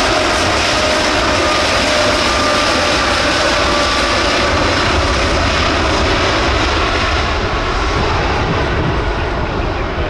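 Boeing 787 jet engines spooled up to high power: a loud, dense engine noise with steady whining tones through it. The high hiss fades over the last few seconds.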